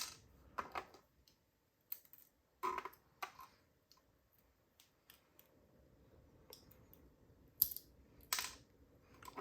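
Scattered small metallic clicks and taps, a few in quick clusters: tiny padlock driver pins and springs being handled with tweezers.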